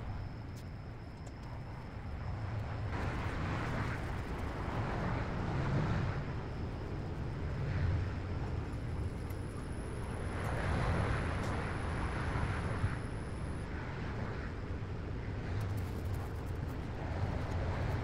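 Cloth rag wet with mineral spirits wiping glue overspray off a car's painted body and rear window glass: soft swishing strokes that come and go, over a steady low outdoor rumble.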